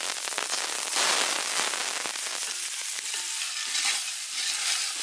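Chopped onions sizzling and crackling in hot mustard oil in a large metal pot, a little louder about a second in. A ladle stirs them toward the end.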